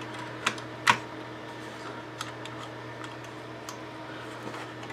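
Hard plastic model-kit parts clicking and tapping as braces are handled and set into a plastic tank hull: two sharp clicks about a second in, then a few lighter ticks, over a low steady hum.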